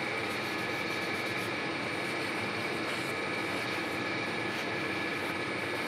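Metal lathe running steadily, a steady whine from its gearing over the motor's hum, as a shop towel is worked along the turning steel shaft.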